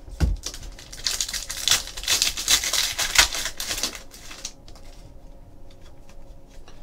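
Plastic wrapper of a Donruss basketball hobby pack crinkling as it is torn open and stripped off the cards, a dense crackle lasting about three seconds, after a soft thump just after the start. Quieter handling of the cards follows.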